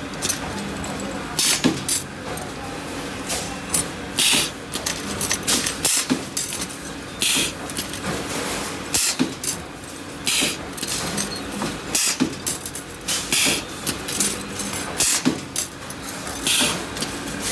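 Resistance butt welding machine at work joining copper to aluminium tube: a steady hum under short, loud hissing bursts that come irregularly, about one every second or two.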